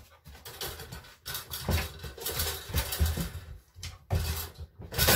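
Wire door of a plastic dog crate rattling and clanking as a dog goes in and pulls it shut by a cloth tied to the door, with many irregular knocks and thumps.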